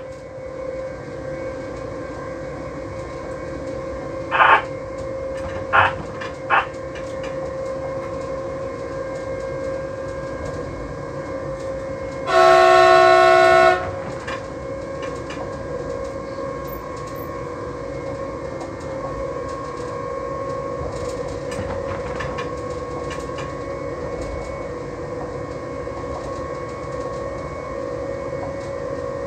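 Electric train running, heard from inside the driver's cab as a steady hum with a constant tone. About twelve seconds in, the train's horn sounds one blast of about a second and a half, the loudest sound here. A few short, sharp sounds come in the first seven seconds.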